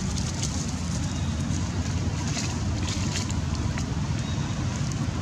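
Steady low rumble of wind buffeting the microphone, with scattered light crackles of dry leaves.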